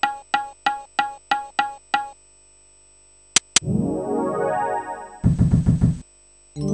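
Electronic sound effects from a Barcrest Big Bucks video fruit machine. First comes a run of short identical beeps, about three a second, while credit is counted over from the bank. Then, after a pause, two sharp clicks, a sliding pitched jingle as the reels spin, a fast rattle as they stop, and a held synth chord near the end.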